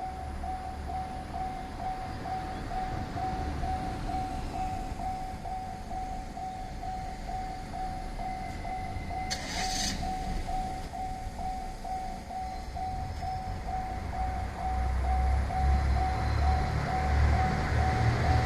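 Japanese railway level-crossing warning bell ringing in a steady, rapid ding-ding rhythm. A low rumble builds toward the end as the 1200 series diesel railcar approaches. A short hiss comes about halfway through.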